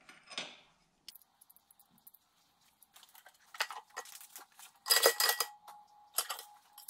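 Small steel parts clicking and clinking against a cast-iron bench vise as a threaded fitting is set between its jaws. About five seconds in, a louder clatter of ringing metal comes from the vise's steel handle being taken up.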